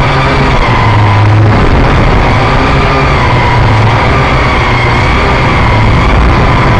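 Quadcopter's electric motors and propellers running, heard up close from the aircraft's own camera: a loud, steady whine whose pitch wavers slightly as the throttle shifts.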